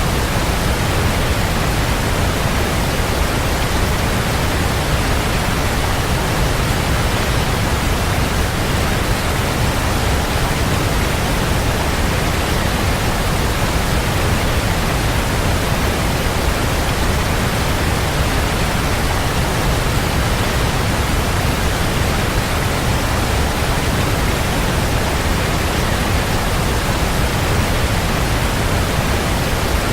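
Waterfall: a steady, even rush of falling water with a deep low rumble, unchanging throughout.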